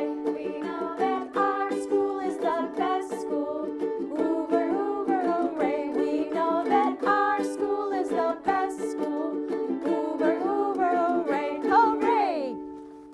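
Girls singing the school song over steadily strummed chords on a string instrument, ending on a final note near the end.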